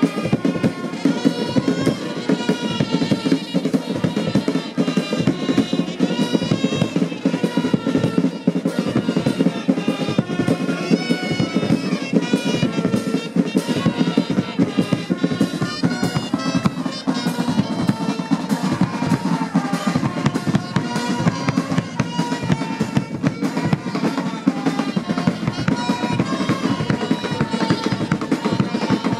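Music of fast, dense drumming with a high melody wavering above it, going on without a break.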